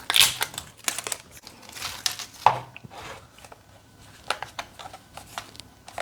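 Packaging of a toy blind pack crinkling and rustling in irregular bursts as it is handled and opened, loudest near the start and about halfway through.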